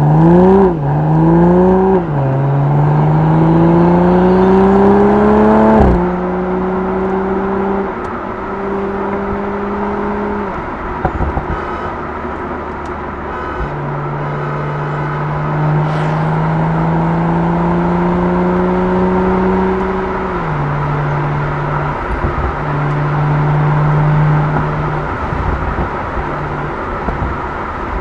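BMW Z4 M40i's turbocharged 3.0-litre inline-six on its stock exhaust, heard from inside the cabin under hard acceleration: revs climb with two quick upshifts in the first two seconds and keep rising until a sudden drop about six seconds in. It then cruises, climbs again more slowly and drops back near twenty seconds in, running steadily with short dips after that.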